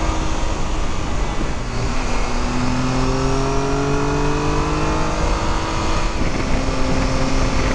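Triumph Tiger 1200's three-cylinder engine pulling on the road, heard from the bike over heavy wind rush. Its pitch climbs steadily from about two seconds in, then drops back slightly about six seconds in.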